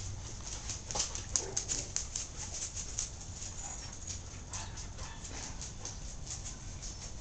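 A German shorthaired pointer puppy's claws clicking irregularly on a concrete floor as it trots about, several light clicks a second.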